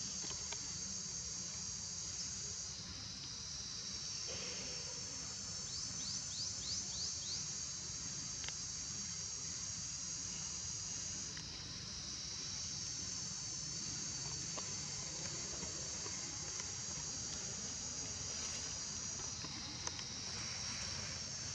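Steady high, shrill drone of an insect chorus, with a brief run of quick chirps about six seconds in.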